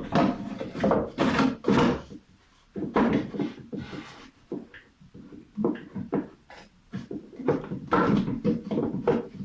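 Irregular scrapes, rubs and knocks of parts being handled and fitted together, as a drawer-shaped part is slid into a box.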